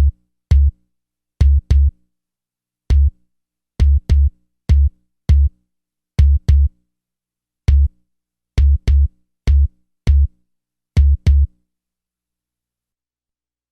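Drum-machine bass drum test pattern tuned to about 70 Hz: short, punchy kick hits in an uneven rhythm, roughly one to two a second, used to test how a system's speakers and subwoofer handle deep bass. The hits stop about eleven and a half seconds in.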